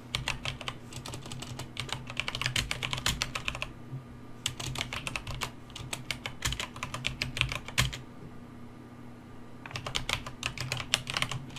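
Typing on a computer keyboard: rapid runs of key clicks in three bursts, with short pauses between them.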